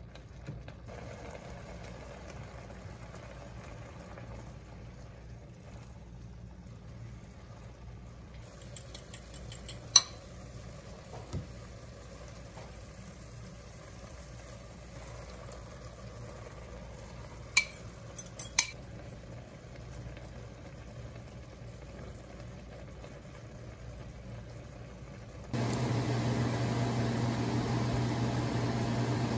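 Beef and onions frying with a low sizzle in a nonstick pan while metal tongs stir, clicking sharply against the pan a few times. About three-quarters of the way through, a louder steady mechanical hum switches on and keeps going.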